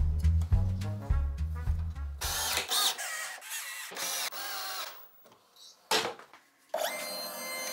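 Cordless drill driving screws into wooden hold-down clamps in short runs, its motor whine rising and falling, then a steady run near the end. Music with a heavy bass line plays over the first couple of seconds.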